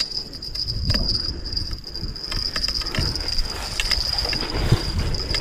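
A steady, high-pitched insect drone, with low wind rumble and a few faint knocks underneath.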